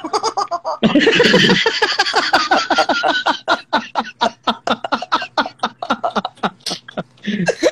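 Men laughing hard: a long run of rapid, hearty laughs that starts about a second in and tapers off near the end.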